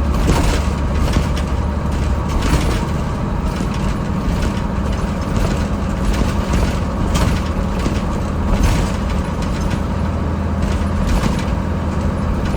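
Cab-over truck's diesel engine running steadily, with frequent short clicks and knocks over it.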